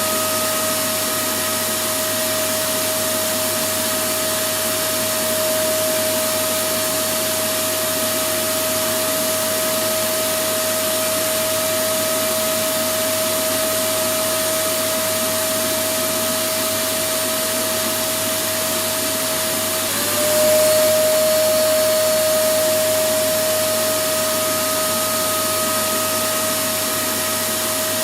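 Electric vacuum cleaner running steadily: a loud rushing of air with a steady motor whine. About twenty seconds in, the whine dips for a moment and comes back a little louder.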